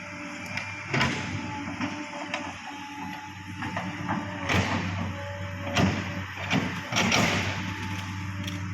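Excavator's diesel engine running steadily under load, with its bucket knocking and scraping on landslide soil and rock several times.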